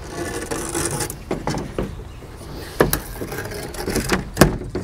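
Old nylon screen mesh being pulled out of a window screen frame: a scraping rustle, followed by several sharp knocks and taps, the loudest near the end.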